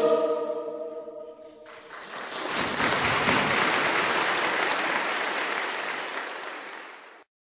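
A choir's final chord dying away, then audience applause that swells about two seconds in, holds, and fades out near the end.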